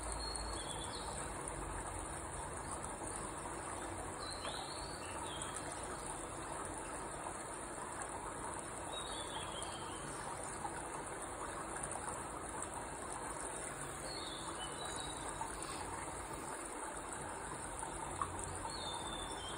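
Insects, crickets by the sound of it, chirring steadily and high-pitched, with a few short, high chirps scattered through, over a low hiss.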